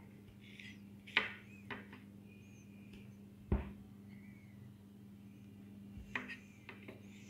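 Scattered light clicks and knocks, the loudest about halfway through, as pieces of goat cheese are set on a pizza on a metal baking tray. A steady low hum runs under them, with faint short high chirps.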